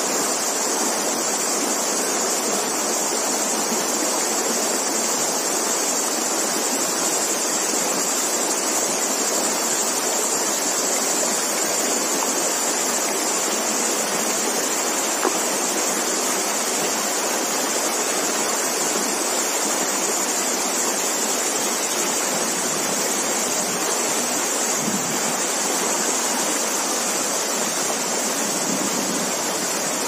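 Stream water rushing steadily over a shallow, stony bed, an even hiss with no change in level.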